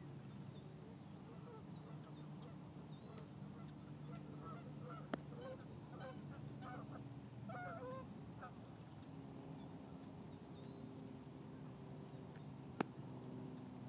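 Faint outdoor ambience: distant birds give short honking calls, mostly in the middle stretch, over a steady low hum. A sharp click comes about five seconds in and a louder one near the end.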